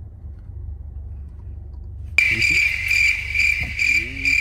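A high, insect-like chirping trill starts suddenly about two seconds in and holds steady with a slight pulsing, over a low steady rumble.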